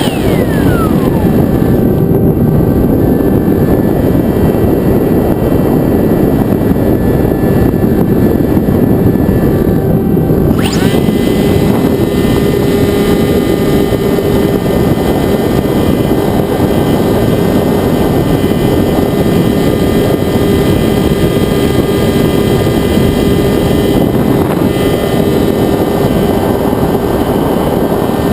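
Sky Surfer RC plane's electric motor and propeller running, heard from the onboard camera with a steady rush of wind over it. The motor's pitch changes as the throttle moves, sliding down near the start and rising sharply about ten seconds in.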